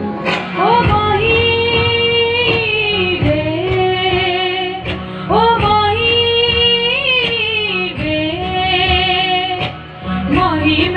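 A boy singing long wordless phrases into a microphone, each sliding up into a held, wavering note, over a recorded backing track played through the stage speakers.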